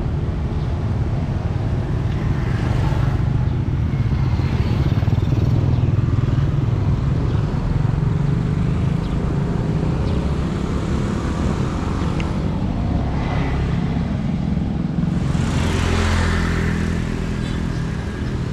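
Road traffic: motorcycles and cars passing one after another over a steady low engine rumble, with several louder swells as vehicles go by.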